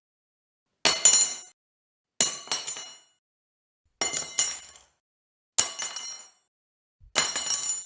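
A fork dropped five times, each fall a bright clinking clatter of two or three quick bounces with high ringing that dies away within about half a second. The drops come roughly every one and a half seconds, with silence between them.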